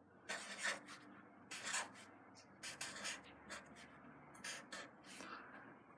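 Sharpie felt-tip marker writing capital letters on paper: a quiet string of short pen strokes, about seven or eight, each a brief rub of the tip across the page with small pauses between.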